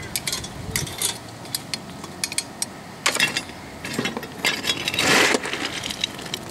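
Steel poker rod stirring the coal fire in a small live steam locomotive's firebox: light metallic clicks and clinks against the firebox door and grate, with longer scrapes about three, four and five seconds in, the last the loudest.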